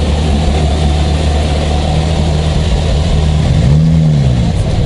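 Porsche Carrera GT's V10 running at low revs as the car rolls slowly past, with a short throttle blip near the end that lifts the pitch and lets it fall back.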